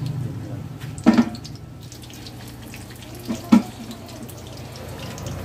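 Vegetable spring rolls sizzling as they deep-fry in hot oil in a wok: a steady bubbling hiss over a low hum, with two brief louder sounds, about a second in and past the middle.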